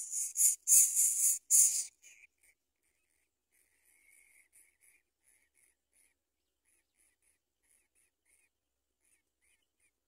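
Greater coucal nestling's high-pitched begging calls as it is fed: a loud rapid burst in the first two seconds, then faint short calls, a few a second, thinning out.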